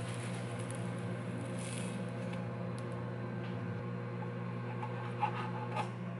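Chef's knife slicing through a thin egg sheet on a plastic cutting board, with soft scraping and two short clicks of the blade meeting the board near the end, over a steady low hum.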